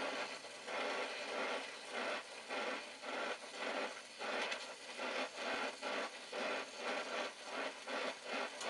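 Oxy-acetylene torch flame hissing steadily against a copper refrigerant line while a joint is brazed, its level swelling and fading about twice a second as the flame moves.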